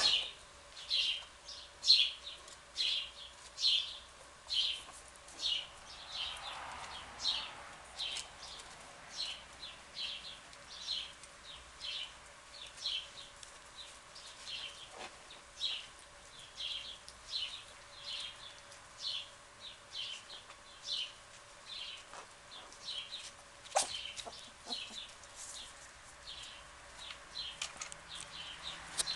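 A small animal calling over and over, short high-pitched calls about twice a second, with a faint steady hum underneath and a brief click late on.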